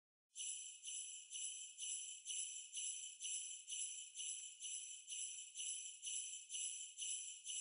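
Jingle bells shaken in a steady beat, about two shakes a second, opening a background music track.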